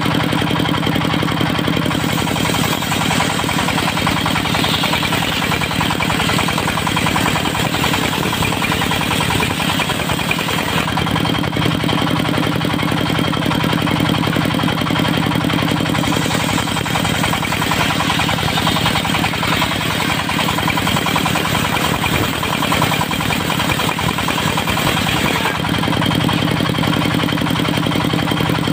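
Diesel engine driving a circular sawmill, running steadily at an even speed.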